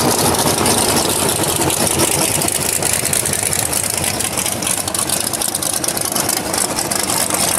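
Race engine of a 1941 Willys coupe drag car idling with a choppy, rapid beat as the car rolls slowly past.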